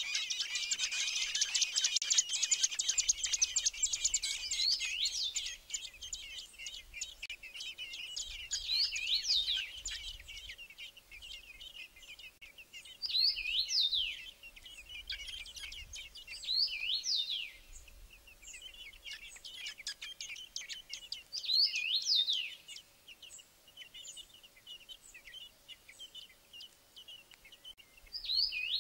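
Fieldfare nestlings begging at the nest. A dense run of rapid high-pitched calls for the first few seconds gives way to quieter chatter, broken by a short sweeping high call every few seconds.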